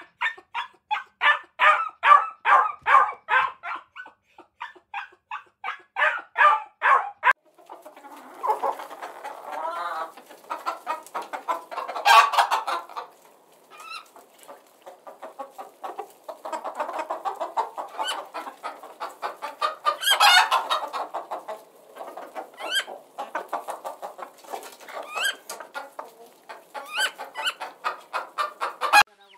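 Puppies yapping in a quick, even run of high yips, which stops about a quarter of the way through. After that, a flock of hens clucking together, with louder outbursts twice.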